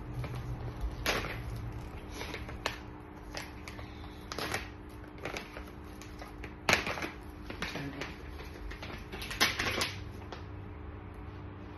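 Packaging being handled and opened: irregular clicks, knocks and crinkles, the sharpest about seven and nine and a half seconds in.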